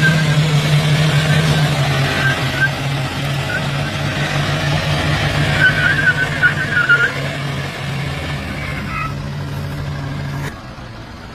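Engines running hard under load as a New Holland 4710 4×4 tractor and a Toyota Fortuner pull against each other on a tow rope, the vehicles' wheels churning dry dirt. A few short high chirps come around the middle. The engine sound drops away suddenly about a second before the end.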